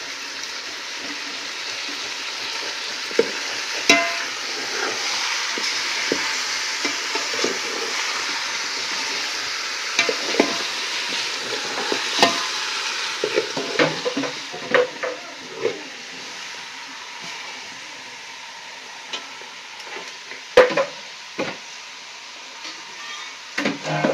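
Mutton pieces sizzling in a metal pot over a wood fire while a steel spoon stirs them, clinking and scraping against the pot. The sizzle eases about two-thirds of the way in, leaving scattered spoon knocks.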